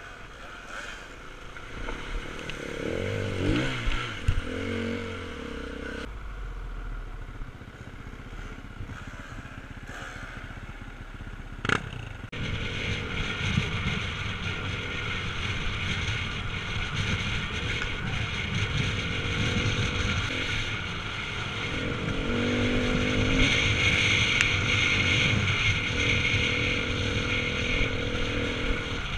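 Off-road motorcycle engine heard from the rider's helmet camera while riding a dirt track, its pitch rising and falling as the throttle is opened and closed.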